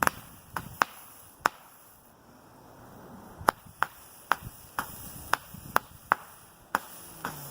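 The Keystone 96 Shot Color Pearl firework cake, a Roman-candle-style cake, firing its shots one after another as a string of sharp pops at irregular intervals. There is a lull of about two seconds near the middle of the string.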